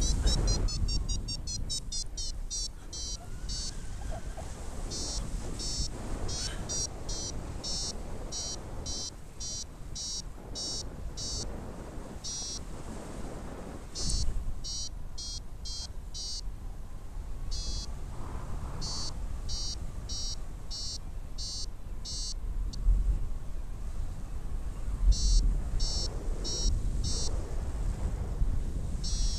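Paragliding variometer beeping in runs of short, quick high beeps, the climb tone that signals the glider is rising in lift, with brief pauses between runs. Low wind rumble on the microphone swells under it now and then.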